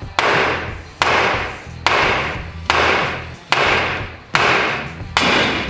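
Hammer blows on the steel steering arm of a John Deere 2250's front axle, driving out a seized tie-rod end after its nut is off. Seven strikes a little under a second apart, each ringing out as metal on metal.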